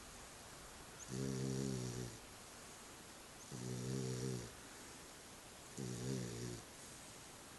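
Sleeping puppy snoring: three snores in an even rhythm, each about a second long and a little over two seconds apart, with quieter breathing between.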